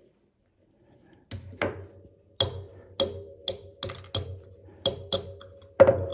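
Small hammer tapping a hollow punch to knock a fountain pen's nib and feed out of the section seated in an aluminum knock out block. About a dozen light, uneven taps, each with a brief metallic ring, the last one near the end the hardest.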